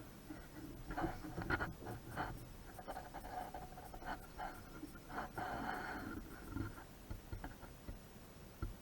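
Hands working on fuel hose fittings and clamps: scattered light clicks, knocks and rubbing, with a couple of longer squeaky scrapes a few seconds in.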